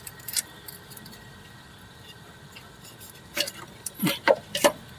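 A few short, sharp clicks and rattles of plastic connectors and metal parts being handled in an engine bay as a wiring harness is unplugged and pushed aside. There is one click about a third of a second in and a quick cluster of several near the end.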